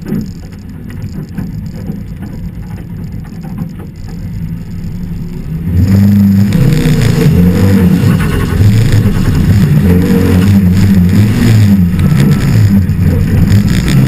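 Audi Quattro Group 4 rally car's turbocharged five-cylinder engine, heard from inside the car on gravel. For the first six seconds there is only a quieter rumble; then the throttle opens hard and the engine pulls loudly, its revs climbing and dropping back with each upshift.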